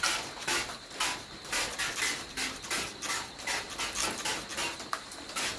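Aerosol spray paint can hissing in short, quick bursts, about two a second, dusting small spots of paint onto the panel.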